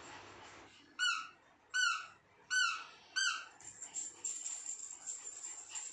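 Squeak-and-rattle dog toy squeezed four times: four short, high squeaks about three-quarters of a second apart, each falling slightly in pitch.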